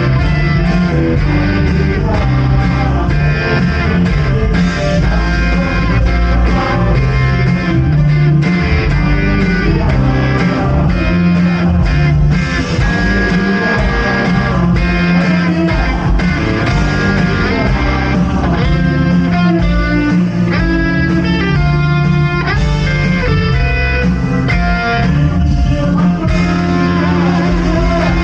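Worship band playing an instrumental passage, with guitar to the fore over bass guitar and drums.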